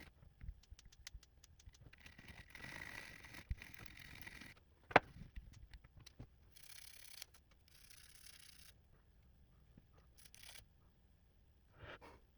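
Brush scrubbing the butterfly keyboard of a 12-inch MacBook in separate scratchy strokes, with scattered light clicks and one sharp click about five seconds in.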